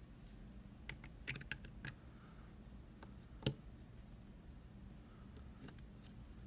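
Sharp little clicks and taps from hand work on a picked mortise lock cylinder and its tools: a quick run of several clicks about a second in, then one louder click about three and a half seconds in.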